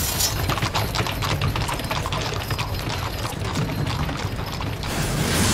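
Hooves of several horses clip-clopping on a paved street, over a steady low rumble. Near the end a rush of noise swells up.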